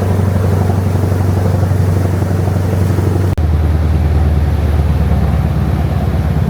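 Boat engine running with a steady low drone; a little past halfway it drops slightly in pitch.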